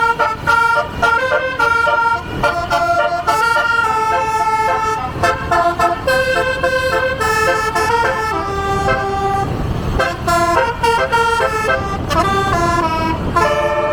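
Basuri Artis 24-note telolet bus horn playing a fast tune: loud, clear horn notes that step quickly from pitch to pitch, with a short gap in the notes about ten seconds in and a few sliding notes near the end.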